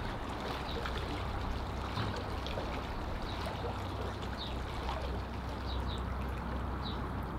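Steady rushing noise of wind and river water, with a few faint, short high chirps scattered through it.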